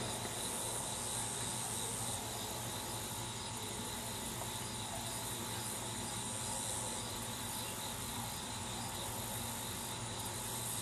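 Steady outdoor ambience of insects chirping and buzzing, with a high insect buzz that fades about two seconds in, over a low steady hum.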